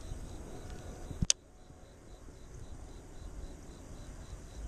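Crickets chirping in a steady rapid pulse, about four chirps a second, over a low rumble. About a second in comes one sharp click.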